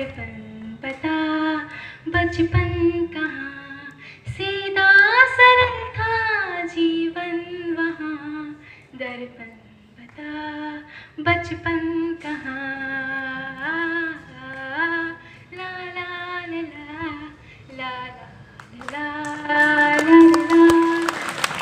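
A schoolgirl singing into a microphone, in phrases of held notes that slide up and down in pitch, with short breaks between phrases.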